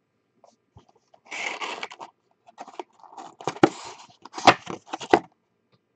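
A cardboard hobby box of 2018 Panini Select cards being picked up and handled. A scraping rustle comes about a second in, then more rustling with several sharp knocks near the end.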